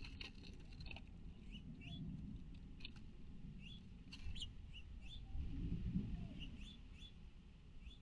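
Small songbirds giving short, high, rising chirps again and again, over a low background rumble, with a few faint clicks early on and about three seconds in.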